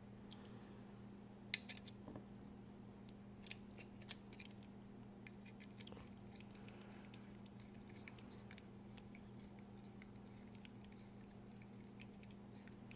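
A few small, sharp metallic clicks from a folding pocket knife being handled during reassembly. They come in two brief clusters early on, over a steady low electrical hum.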